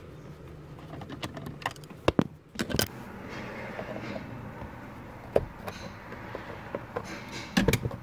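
Irregular sharp clicks and clacks of hard plastic trim and a screwdriver as the steering column shroud is worked loose by hand, with a louder cluster of clicks about two to three seconds in and another pair near the end.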